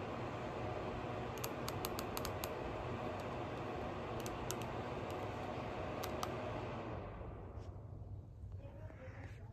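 Humhold ceiling fan running: a steady whoosh of moving air with a low hum, and a few light clicks in short groups. The sound drops away about seven seconds in.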